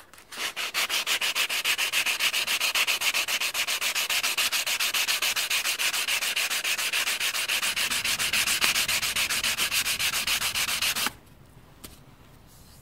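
Rapid, even back-and-forth hand-sanding strokes of 400-grit sandpaper on a block against an aluminium trim strip held in a vise, stripping off its anodised layer. It stops suddenly near the end.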